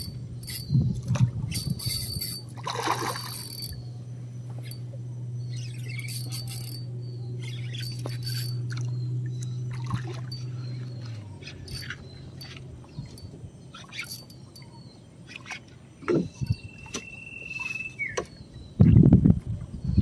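A hooked fish splashing and thrashing at the water's surface beside the boat about a second before the end, the loudest sound here. Before that comes a low steady hum that stops about halfway through, with scattered ticks and knocks.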